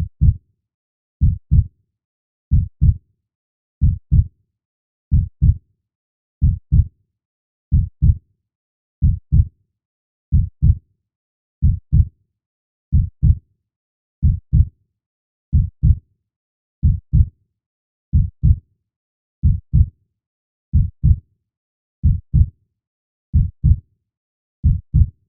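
Slow, steady heartbeat, a double 'lub-dub' thump about every 1.3 seconds, with silence between beats.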